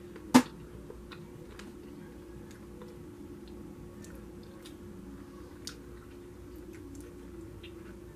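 Eating mouth sounds: scattered soft clicks and lip smacks from licking barbecue sauce off the fingers, with one sharp, loud click about half a second in. A faint steady hum runs underneath.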